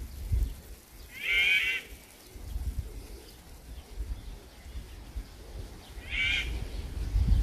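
A wild mountain bird calling twice, about five seconds apart: each a short call of under a second made of several stacked tones, over a low rumble.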